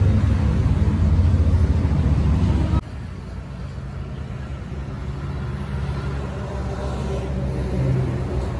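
Steady low background rumble, with no distinct events. It drops abruptly about three seconds in, then slowly builds again.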